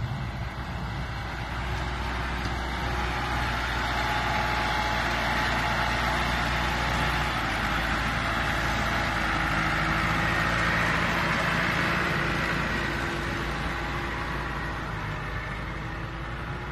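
Farm tractor engine running steadily as it works, pushing snow with a front blade.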